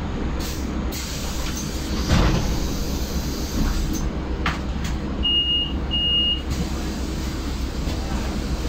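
Solaris Urbino 9 LE electric bus heard from inside the cabin while under way: a steady low rumble of the ride, with a knock about two seconds in. Two short, high electronic beeps come just past the middle.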